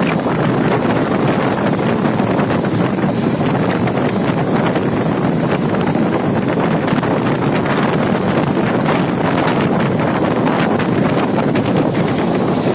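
Wind rushing over the microphone at the open window of a moving vehicle, a steady loud rush with no breaks.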